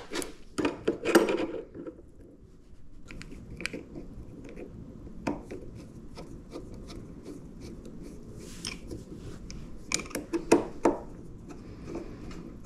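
Handling noises from model airplane parts being worked on: scattered clicks, taps and rubbing, with a few louder knocks near the start and again about ten seconds in.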